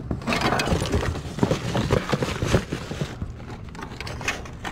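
Rummaging in a dumpster: a large cardboard box and plastic bags are handled close up, giving a rapid run of knocks, scrapes and crinkling that eases off about three seconds in.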